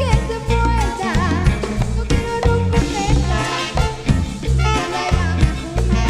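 Upbeat band music with a driving bass line and drum kit under a wavering lead melody line.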